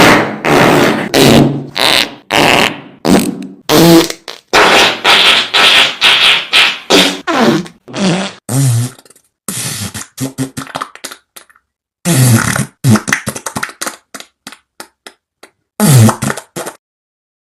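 A string of fart sound effects, one after another: long raspy blasts with low pitched notes in the first several seconds, then shorter sputtering pops broken by brief pauses. A single blast comes a little before the end, then silence.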